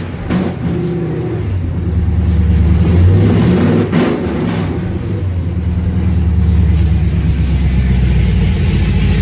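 Chevrolet Trailblazer SS's LS2 V8 running through newly fitted aftermarket headers, blipped to a brief rev about two seconds in and then settling back to a steady idle.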